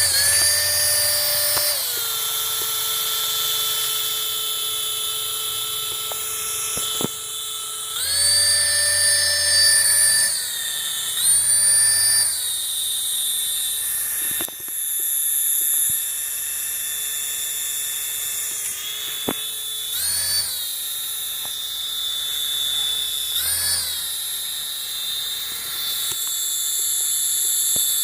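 Small electric motors of a homemade toy helicopter drone spinning its propellers with a steady whine, speeding up in short surges about four times and settling back each time.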